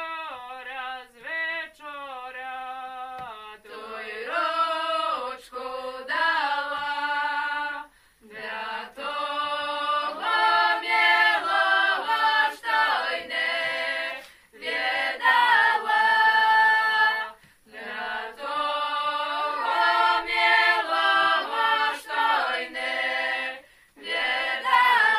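A small group of young women singing a traditional Belarusian folk song a cappella, in long held phrases with brief pauses between them.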